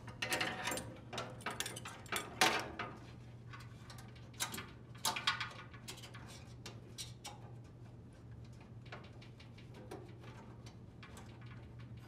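Wire harness being handled and pressed into a plastic retaining clip inside a dryer's sheet-metal cabinet: irregular clicks, taps and wire rustles, busiest in the first few seconds and sparser after, over a faint low hum.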